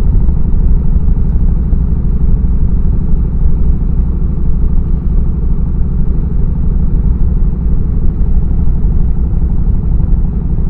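Yamaha Road Star 1700's air-cooled V-twin engine and exhaust running steadily while the motorcycle cruises at road speed.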